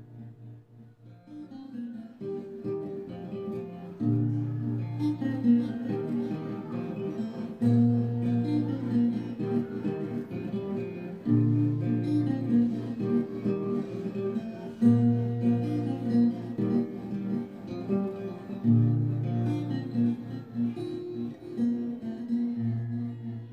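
Yamaha FS100C steel-string acoustic guitar played in a repeating chord progression: picked notes over a low bass note struck afresh about every three and a half seconds. The playing starts softly and fills out after the first few seconds.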